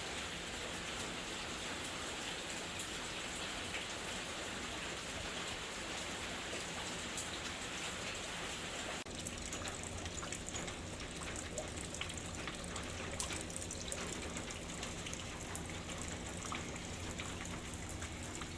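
Steady rain falling. About nine seconds in the sound changes abruptly, and after that individual drops tick sharply through the patter.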